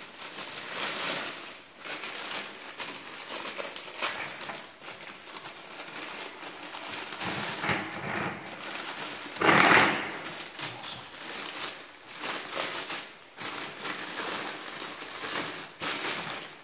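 Thin plastic waste bag crinkling as it is pulled and smoothed into a vacuum cleaner's container, with a louder rustle about ten seconds in.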